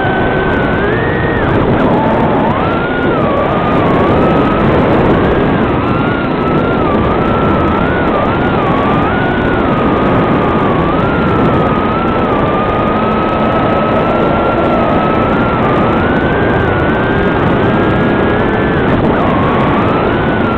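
Motors and propellers of a Swallow 130 FPV quadcopter buzzing in flight, the pitch wavering up and down with the throttle over a thick hiss. Heard through the goggles' DVR recording of the drone's audio feed.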